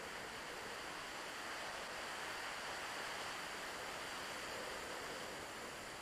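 Steady rushing air noise on a camera carried by a flying RC plane, with faint steady high-pitched tones above it.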